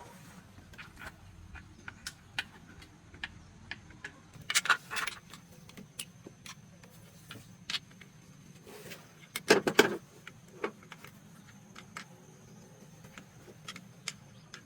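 Metal tools and parts being handled during engine repair: scattered light clicks and clinks, with two short bursts of louder clatter about five and ten seconds in.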